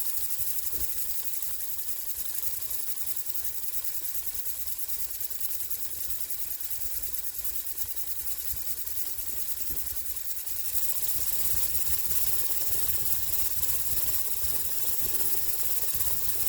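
Small 3D-printed oscillating-cylinder air engine running on compressed air: a steady hiss of exhausting air with rapid, even mechanical chatter. It gets louder about two-thirds of the way through.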